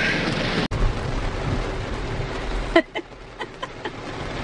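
Heavy rain on a car, heard from inside the cabin: a steady hiss with a low rumble. Near the end it turns quieter, with a few sharp clicks.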